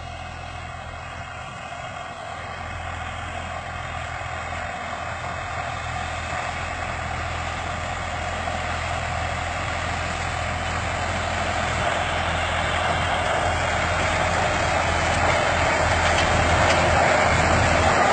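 Massey Ferguson tractor's diesel engine running steadily while working a sugar beet harvester, with a steady low hum under a broad mechanical clatter, growing steadily louder throughout.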